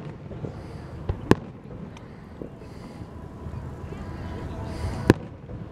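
Aerial firework shells bursting in the sky: two sharp booms close together about a second in, the second the louder, and another boom near the end, over people talking.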